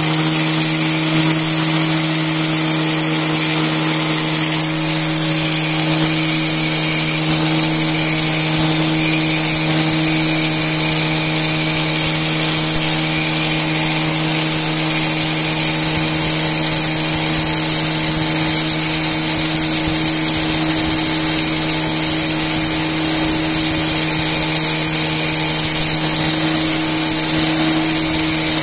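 Handheld angle grinder running steadily with an abrasive disc while a thin metal rod is held against the disc face and ground down to make it thinner, a steady motor hum under the hiss of the grinding. The motor comes up to speed at the start and begins to wind down at the very end.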